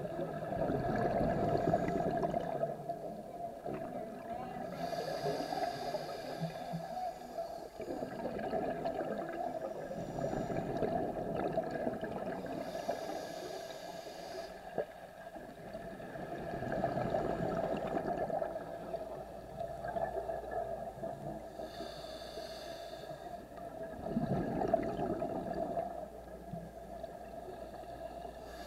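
Scuba diver breathing through a regulator underwater: a short hiss on each inhale and a gurgling rush of exhaled bubbles, in a slow cycle of about eight seconds, four exhales and three inhales.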